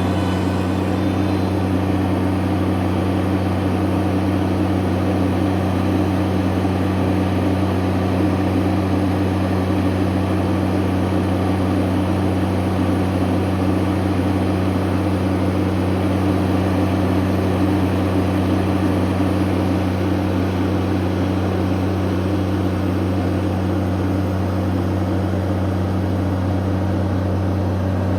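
Bobcat MT100 mini skid steer's diesel engine running at a steady speed, its pitch and loudness unchanging throughout.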